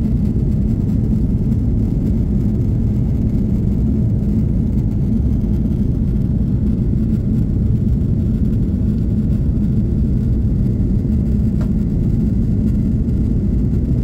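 Airliner cabin noise in flight: the steady low rumble of jet engines and rushing air heard from a window seat.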